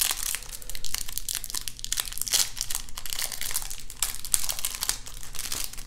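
Thin plastic wrap crinkling and crackling as it is peeled off a stack of trading cards by hand, a continuous run of small crackles.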